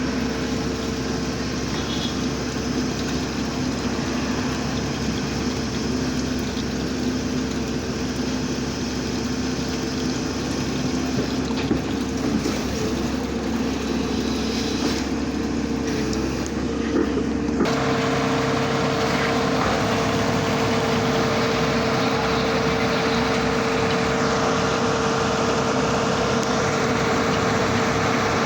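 Engine of an earth drilling machine running steadily with a constant hum. The sound shifts abruptly about two-thirds of the way through: the low end drops and the hum grows more prominent.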